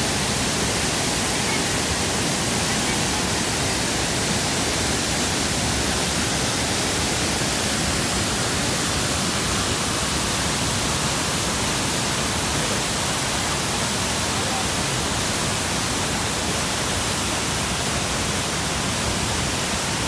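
Waterfall rushing: a steady, unbroken wash of water pouring over the rocks close by.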